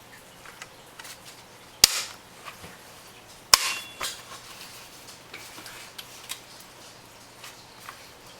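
Stroller front-wheel swivel locks being worked: two sharp plastic clicks about a second and a half apart as the locks snap into place, with a few faint handling ticks between.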